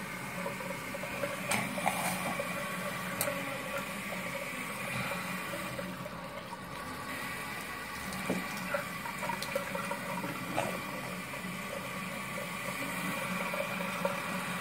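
Bathroom sink tap running steadily into the basin, with a few light clicks in the first few seconds.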